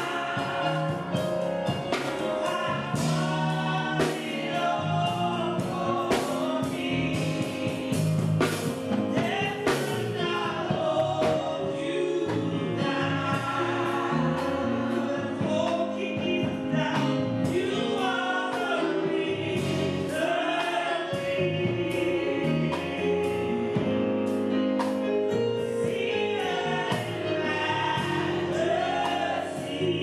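Live gospel praise song: a woman sings lead into a microphone while other voices sing along, backed by a live band with guitar.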